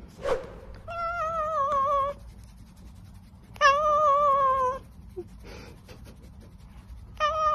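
Domestic cat meowing in long, drawn-out, wavering calls, three of them about a second or more each, with a short falling call just after the start.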